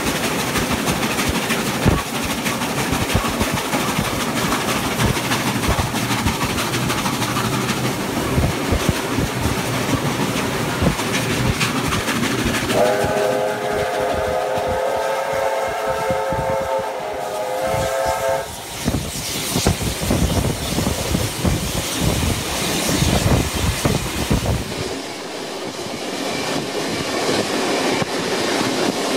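NSW 36 class steam locomotive 3642 and its carriages passing close by with a dense, rapid clatter. About thirteen seconds in, a steam whistle gives one long chord-like blast of roughly five seconds, after which the carriage wheels click over the rail joints.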